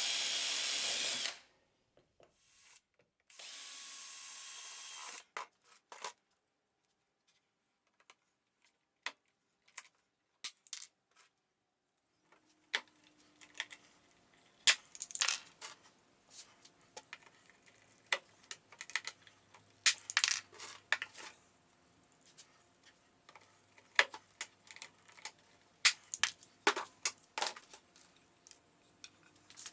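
A power drill runs in two short bursts, ending about a second in and again from about three to five seconds in, as when drilling for pop rivets. After a quiet stretch, many irregular sharp clicks and knocks of hand work follow, over a faint steady hum.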